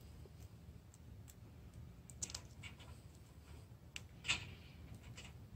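A few faint clicks and rustles of stranded wires and an orange plastic twist-on wire nut being handled and twisted together, the loudest click about four seconds in.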